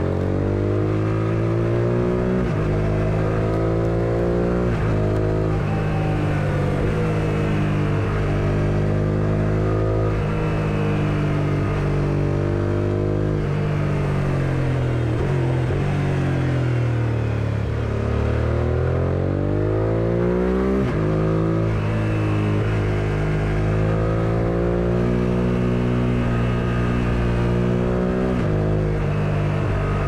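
1999 Suzuki SV650S's 90-degree V-twin with an Akrapovic full exhaust system, heard from the rider's seat under way. The revs climb and drop several times through gear changes and throttle on and off, with a long deceleration about halfway through and a hard pull back up after it.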